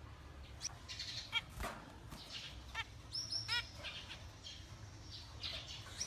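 Zebra finches chirping and singing, a quick string of short chirps and repeated calls over a low steady hum.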